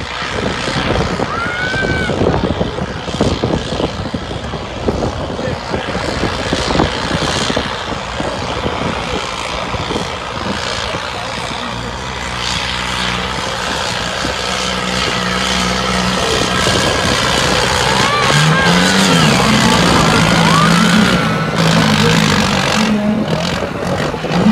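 New Holland 3630 diesel tractor engine working hard under heavy pulling load, its pitch wavering in the second half, with crowd noise and a voice over it.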